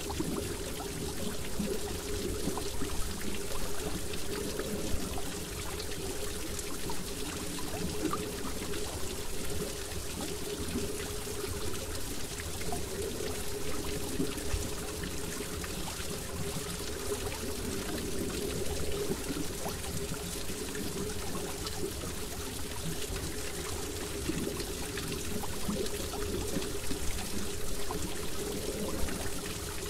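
Steady trickling, pouring water, running without a break.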